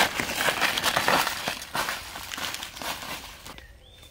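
Dry fallen leaves crackling and crunching as a hand rummages through the leaf litter. The sound is loudest at first, thins out after about two seconds and dies away near the end.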